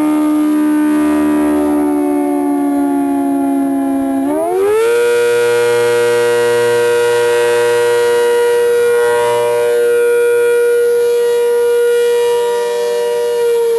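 ACA Hurricane 130 outdoor warning siren wailing loudly, a single tone with many overtones. Its pitch sags slightly, glides quickly up about four seconds in and holds high, then begins to fall near the end.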